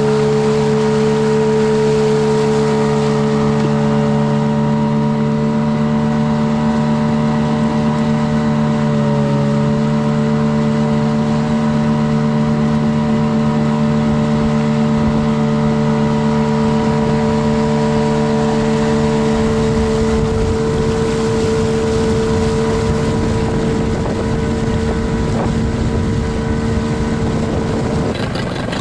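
Outboard motor of an inflatable boat running under way at a steady speed: a steady drone that dips briefly about nine seconds in, with water rushing past the hull.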